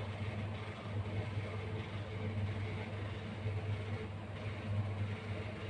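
A steady low machine hum under faint, even background noise.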